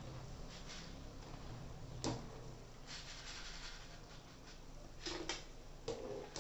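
Hot oil sizzling as seedai dough fries in a kadai, with a wire-mesh skimmer clinking and scraping against the pan a few times, sharpest about two seconds in and again around five seconds in.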